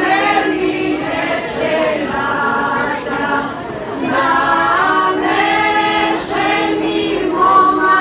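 Women's folk choir singing unaccompanied, in sung phrases with a brief lull about three seconds in.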